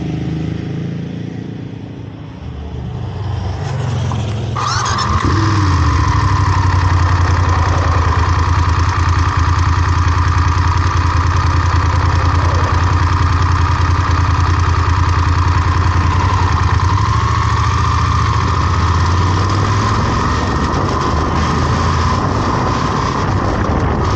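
A vehicle engine growing louder over the first five seconds or so as it pulls away, then running as a steady, loud drone.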